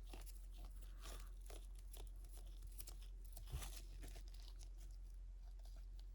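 Faint clicks and rustles of trading cards being slid and flipped through by hand, one card after another, with a slightly sharper snap about three and a half seconds in.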